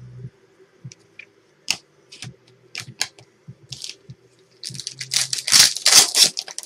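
Trading cards being handled with scattered short clicks and rustles, then a card pack wrapper torn open and crinkled for about two seconds near the end.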